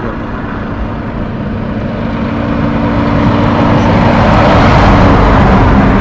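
Heavy truck driving past on the highway, its engine drone growing steadily louder as it nears and loudest about five seconds in.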